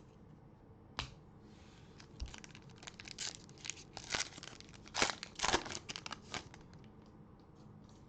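Plastic wrapper of a trading card pack being torn open and crinkled, a sharp click about a second in, then a run of irregular tearing and rustling strokes that stop near the end.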